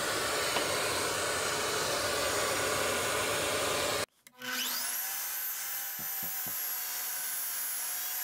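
A steady rushing noise breaks off abruptly. A mitre saw's motor then spins up with a quickly rising whine and runs steadily while the blade is lowered through a strip of oak for a 45-degree mitre cut, with a few low knocks partway through.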